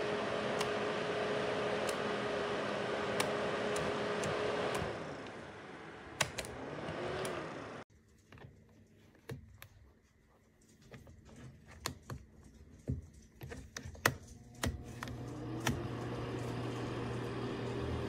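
Aikoper 1500 W ceramic space heater's fan running with a steady hum and scattered clicks, spinning down about five seconds in, then briefly spinning up and down again. The heater now only runs while its tip-over switch is held down, a fault. Later, clicks of the control knobs being turned, and about fifteen seconds in the fan starts up, rising to a steady hum.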